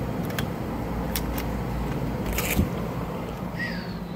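Hotel room key-card door lock: a few sharp clicks as the card goes in and the lock releases, then a longer rattle of the handle and latch as the door is opened, over a steady low hum.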